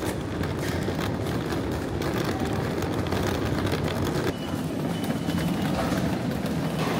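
Hard-shell suitcase wheels rolling over a tiled floor: a steady rumble with light clicks.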